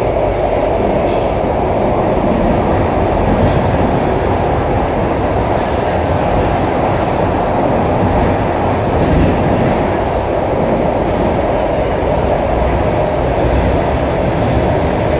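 Interior ride noise of a Singapore MRT C751A metro car running at speed through a tunnel: a loud, steady rumble and roar of wheels on rail.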